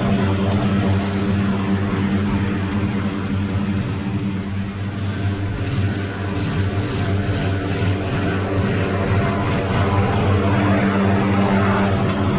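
Small gasoline engine of yard equipment running at a steady speed.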